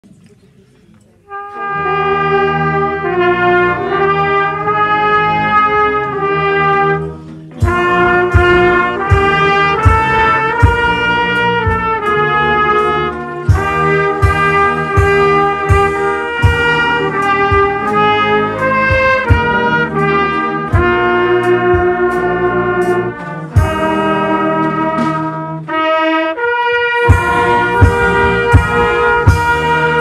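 Brass band playing a tune, with a trumpet close to the microphone carrying the lead over sustained brass chords. A steady drum beat of about two strokes a second joins about seven seconds in.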